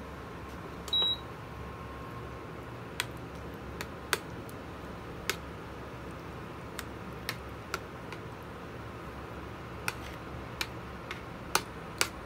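Metal spoon stirring thick bean stew in a stainless steel frying pan, clinking sharply against the pan a dozen or so times at irregular intervals, over a steady low hum. A single short electronic beep sounds about a second in.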